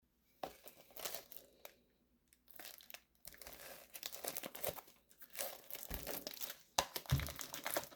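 Plastic packaging crinkling and tearing, in irregular bursts of crackles and scratches with short pauses between them.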